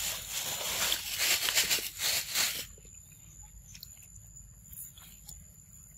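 Long-tailed macaque biting and chewing soft ripe fruit, wet eating noises for the first two and a half seconds, then only a few faint clicks.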